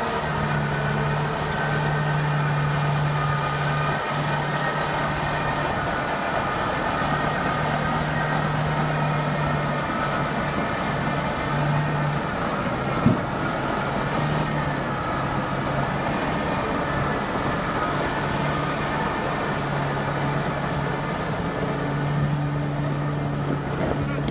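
Kirovets K-744 tractor's diesel engine running steadily during running-in after a major overhaul, with a single sharp knock about halfway through.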